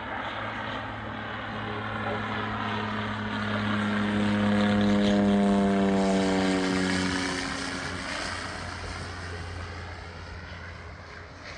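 Propeller airplane flying past overhead: its engine and propeller drone swells to a peak about five seconds in, then drops in pitch and fades as it passes.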